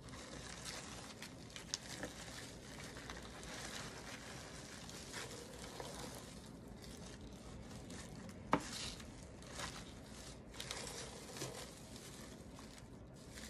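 Brown crinkle paper shred and bubble wrap rustling and crinkling as hands push and fluff the filler inside a cardboard shipping box. One sharp tap about eight and a half seconds in is the loudest sound.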